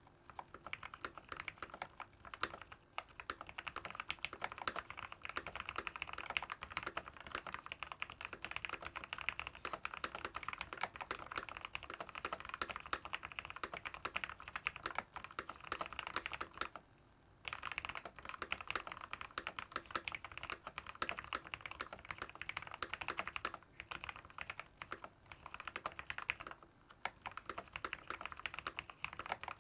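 Keychron K14 mechanical keyboard with Momoka Frog switches, Akko Cool Gray keycaps and a silicone-poured case, typed on quickly and continuously with a thocky key sound. The typing stops briefly about halfway through and twice more near the end.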